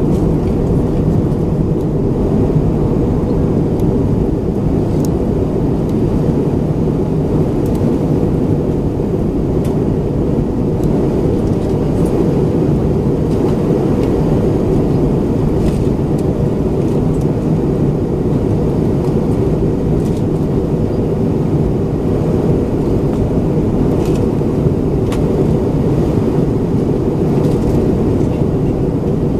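Steady cabin roar of an Airbus A320-232 in flight, heard from inside the cabin: airflow over the fuselage and the IAE V2500 engines blend into a deep, even rumble, with a few faint clicks.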